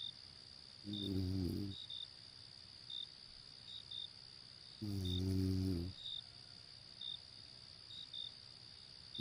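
A person snoring: two low, droning snores, each about a second long and about four seconds apart. Behind them crickets keep up a steady high chirring, broken by short chirps.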